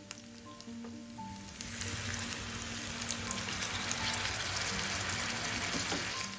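Onions, garlic and chillies frying in hot oil in a pan, sizzling with small crackles, then hissing much louder from about a second and a half in as a little water is added to the oil.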